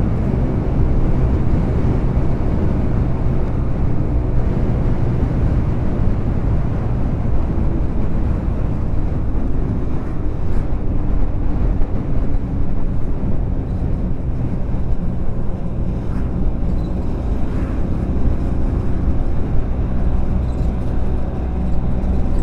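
A motorcycle engine running steadily while riding, its pitch holding fairly constant, under a steady rush of wind and road noise.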